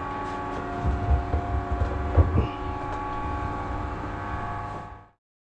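Steady machinery hum in a motor yacht's engine room, several steady tones layered together, with a few low thuds between about one and two and a half seconds in. The sound cuts off abruptly just before the end.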